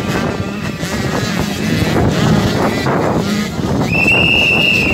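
Several motocross bikes' engines revving hard as the pack rides through a corner, the notes rising and falling as riders work the throttle, with a high, steady engine note held for about a second near the end.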